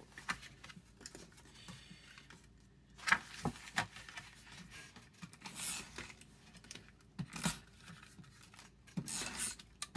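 Paper and a cardboard box handled on a tabletop: irregular rustling, light taps and short scraping strokes, including a tape runner laying adhesive on patterned paper.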